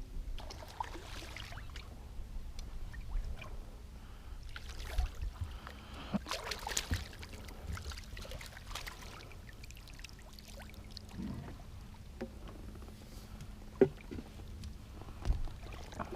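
Water lapping and splashing against a small fishing boat's hull, with a faint steady hum and two sharp knocks near the end.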